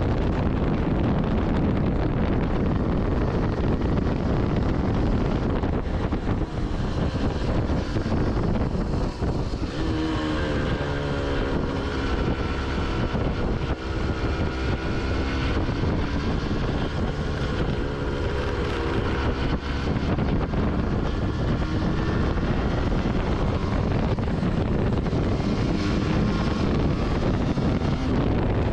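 Wind buffeting the microphone over a Yamaha TDR 125 motorcycle's two-stroke single-cylinder engine while it is ridden. About ten seconds in, the wind eases and the engine note comes through clearly, its pitch dipping and then climbing again, before the wind noise takes over once more.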